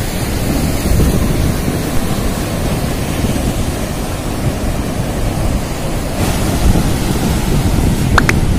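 Sea waves surging and washing against the rocks of a breakwater, with wind buffeting the microphone in a steady rumble.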